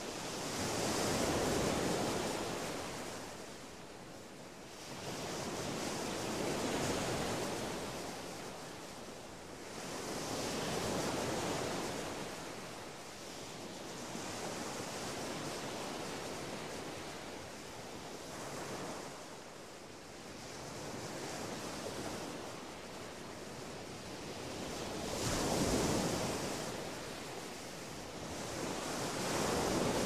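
Small waves breaking and washing up a sandy beach, the surf swelling and easing every four or five seconds.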